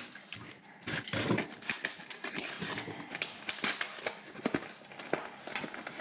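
A plastic blister pack being torn open by hand: the cardboard backing rips and the stiff plastic crackles and clicks in irregular bursts.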